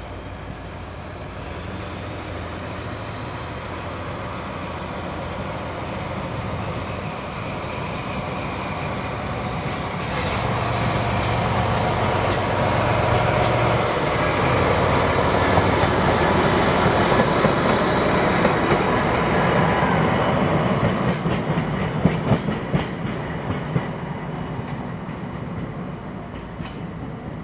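A train hauled by a DE10 diesel-hydraulic locomotive approaching and passing. A steady engine drone builds to its loudest past the middle of the stretch. A run of sharp wheel clicks over rail joints follows as it goes by, then the sound fades near the end.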